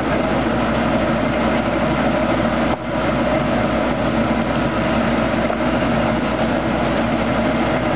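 Tractor engine running steadily under PTO drive, powering a 1970s Foley Belsaw circular sawmill, with a steady mechanical drone; the sound dips briefly about three seconds in.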